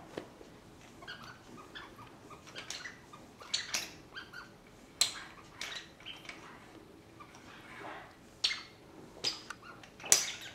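Cat batting and biting a plush toy mouse with pom-poms on a string, making irregular taps, knocks and scrapes against a wooden shelf.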